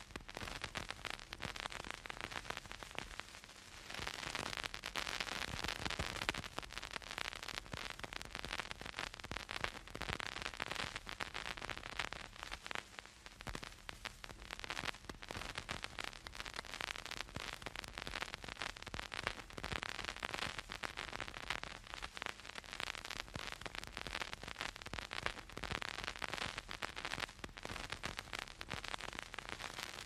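Vinyl record surface noise as the stylus runs in the groove: a dense, irregular crackle of small pops and clicks over a steady hiss, with no music playing. It dips briefly quieter about three seconds in.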